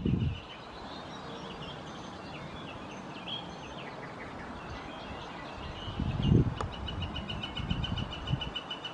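Outdoor ambience with small birds chirping now and then. About two-thirds of the way through, low rumbling comes in and a rapid, evenly pulsed trill starts up again.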